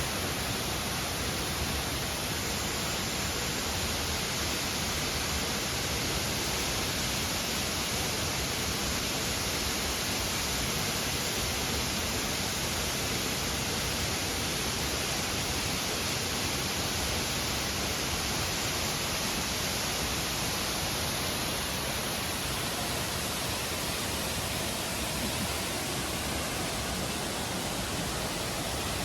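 Waterfall: falling water rushing steadily and evenly.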